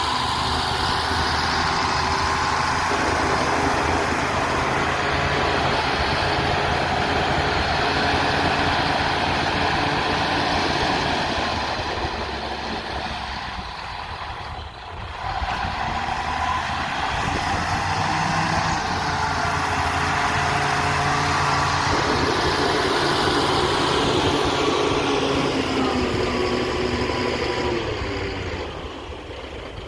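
Diesel engine of a heavy earthmoving machine running steadily. It dies down briefly about halfway through, then picks up again.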